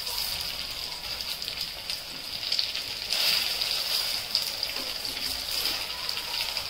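Potato-stuffed bread rolls shallow-frying in hot oil in a nonstick pan while they are turned with a slotted spatula. The oil gives a steady sizzle with small crackles and spits, swelling briefly about three seconds in.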